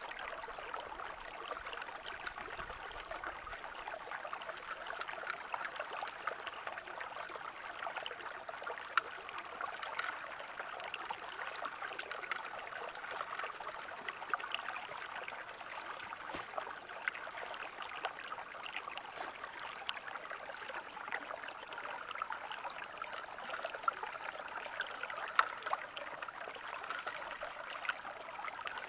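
Stream water running steadily through a metal gold sluice box, with scattered light ticks as gravel is fed in from a scoop.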